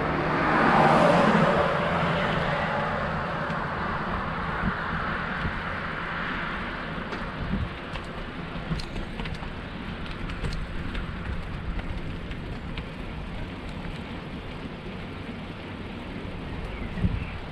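A vehicle passes close by, loudest about a second in and fading over the next few seconds. After that, a steady low rumble of wind on the microphone and road noise from a moving bicycle, with a few light clicks and knocks.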